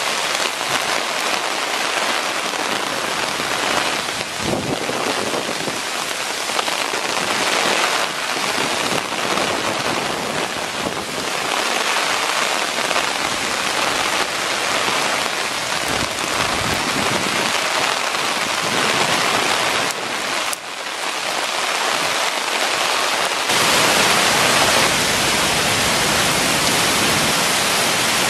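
Heavy hurricane rain pouring onto open creek water, a dense steady hiss of drops hitting the surface. It grows louder for the last few seconds.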